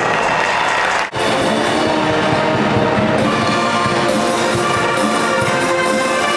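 Loud band music with brass, trumpets and trombones, playing steadily; the sound drops out for an instant about a second in, an edit cut.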